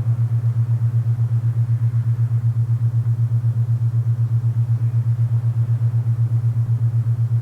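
Alpha binaural-beat tone: a steady low hum that throbs evenly several times a second, with a faint hiss of wind beneath it.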